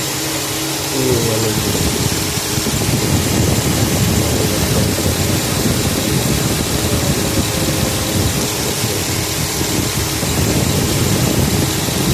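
2009 Chevrolet Tahoe's V8 engine running, louder from about a second in, and then steady. The engine has a P0300 misfire, with water getting into the number 2 cylinder and mixing with the oil.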